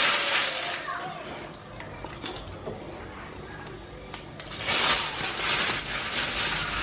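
Plastic bag rustling and crinkling as marinated chicken pieces are picked out of it with plastic tongs, with a few light clicks in a quieter stretch before the rustling picks up about two-thirds of the way in.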